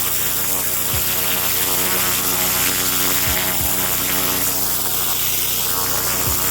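Pressure washer engine running steadily with a high hiss of water spray.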